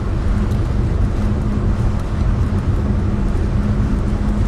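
Steady low rumble of car engine and road noise heard from inside a vehicle's cabin, with a constant hum underneath.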